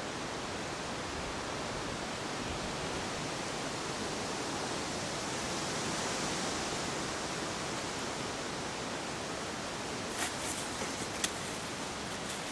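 Steady rushing hiss of outdoor forest ambience, with a few short sharp crackles near the end.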